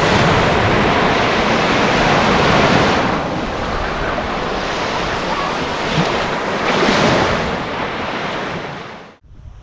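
Sea waves washing onto a sandy beach, swelling and easing twice, with wind on the microphone; the sound cuts off suddenly near the end.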